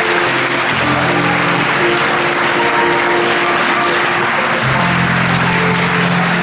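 Audience applauding over background music of slow held notes; a new low note comes in about three-quarters of the way through.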